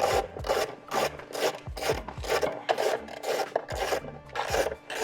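Hand socket wrench ratcheting on a 10 mm bolt, a rasping click-run on each back-swing, about two strokes a second.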